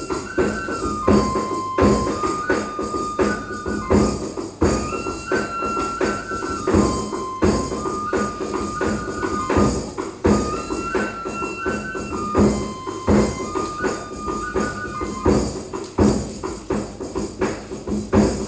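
Kagura music: a flute plays a short phrase of held notes that repeats about every five seconds, over steady, dense drum and percussion strikes.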